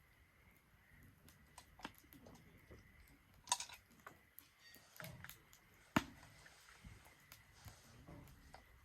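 Wood fire in a Solo Stove Ranger fire pit crackling, with scattered sharp pops; the two loudest come about three and a half and six seconds in.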